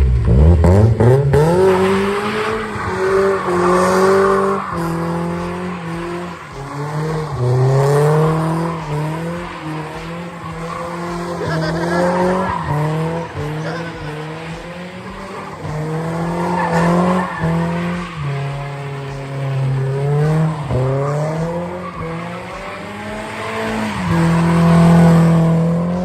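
BMW E36 318i's four-cylinder engine revving hard, its pitch climbing and dropping again and again, with tyres squealing as the car slides through a drift. The revs hold high and loudest near the end before falling away.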